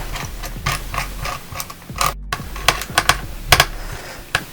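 Small screwdriver driving the heatsink screws into a laptop, with irregular clicks and taps of the tool on the metal heatsink. The sound drops out completely for a moment about two seconds in.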